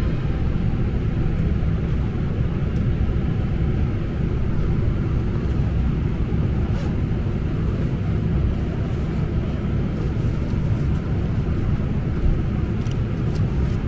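Steady low rumble of an Embraer regional jet's turbofan engines at idle while taxiing, heard from inside the passenger cabin.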